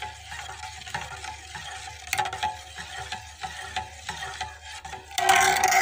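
Metal ladle scraping and knocking around the inside of a stainless-steel pot of heating buttermilk, the pot ringing faintly under each stroke, with a louder grating scrape near the end. The buttermilk is kept stirred until it boils so that it does not split.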